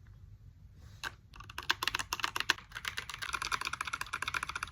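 Mechanical keyboard with yellow switches being typed on: one keystroke about a second in, then rapid key clacks that grow faster and denser toward the end.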